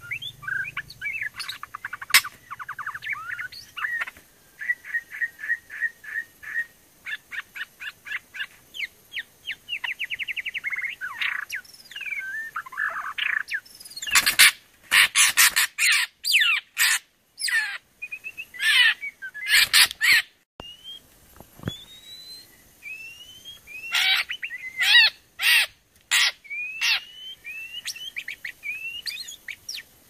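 White-rumped shamas calling: quick repeated chirps and trills through the first half, then a run of louder, harsher calls in the middle, and rising whistled notes about once a second near the end.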